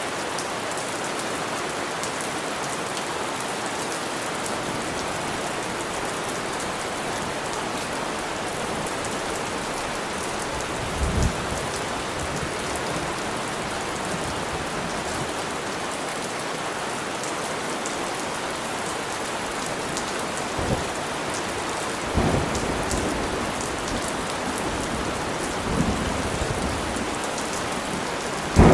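Steady rain falling. Several short low thumps break through in the second half, the loudest near the end.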